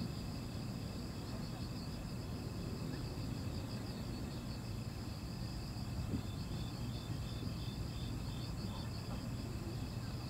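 Crickets chirping at night, several together: steady high trills with fast pulsed chirps, joined after the middle by a slower chirp of about three a second, over a steady low rumble.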